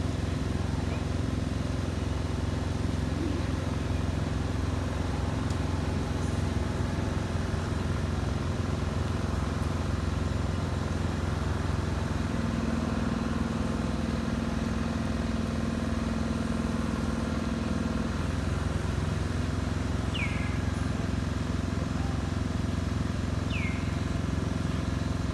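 A steady low mechanical drone, like an idling engine, holding an even level throughout. A higher hum joins it for several seconds midway, and two short, high, falling chirps come near the end.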